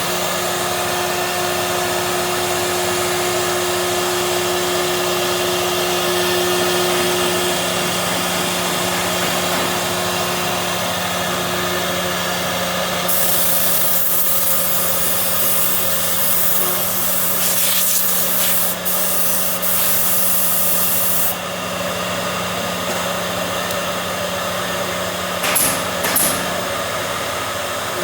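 CNC machine running, a steady motor hum throughout. A loud hiss sets in about halfway through and stops abruptly some eight seconds later, with a few sharp clicks near the end of the hiss and again shortly before the end.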